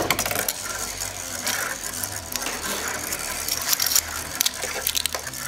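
A Beyblade spinning top spinning on a plastic stadium floor, while a ripcord is fed into a launcher with ratcheting clicks scattered throughout.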